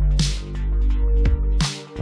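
Electronic background music with a heavy, sustained bass line, deep kick drums and two sharp snare hits.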